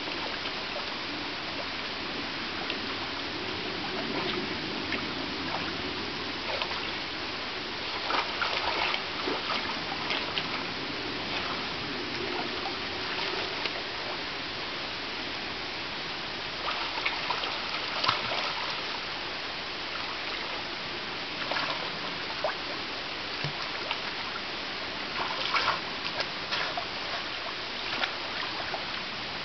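Steady trickling, flowing water, with bursts of splashing from European otters playing in the shallows: once about a third of the way in, again just past halfway, and near the end.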